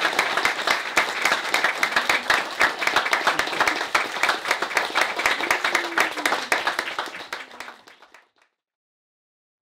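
A small gathering of guests applauding, a dense clatter of many hands clapping that fades away about eight seconds in.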